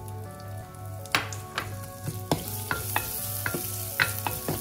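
Chopped onions frying in hot oil with cumin seeds. The sizzle grows stronger about two seconds in, while a wooden spatula stirs them, knocking and scraping against the pan about twice a second.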